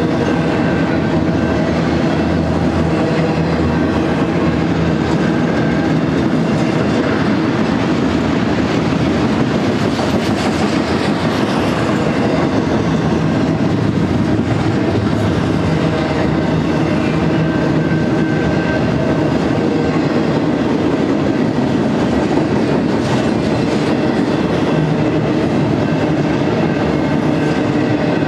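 Double-stack container train's well cars rolling past at close range: a steady rumble and clatter of steel wheels on the rails.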